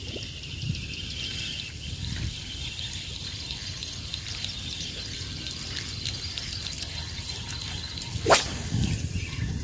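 Fishing lure being drawn through shallow, weedy water with small drips and splashes, then a sharp whoosh about eight seconds in as the rod is swung.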